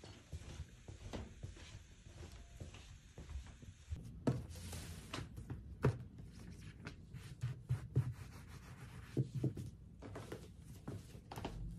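A pile bath mat being laid on a wooden floor and rubbed and smoothed flat by hand, with scattered light taps and knocks of hands and soft slippers on the floorboards.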